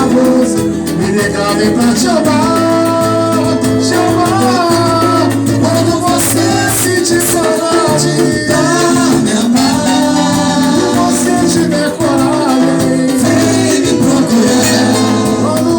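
Live music from a small bar trio: a bending melodic lead line over a bass line that steps between notes, with a steady beat.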